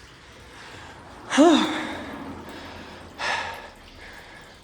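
Heavy breathing from exertion: a loud, voiced sighing gasp about a second in, its pitch rising then falling, then a second breathy exhale about two seconds later.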